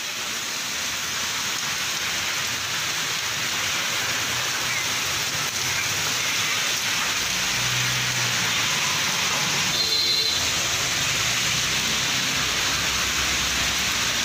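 Heavy rain pouring down and splashing on a waterlogged street, a steady hiss. About ten seconds in there is a brief high-pitched tone.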